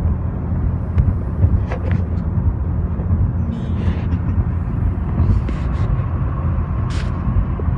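Road and engine noise heard inside a moving car's cabin: a steady low rumble, with a few faint clicks over it.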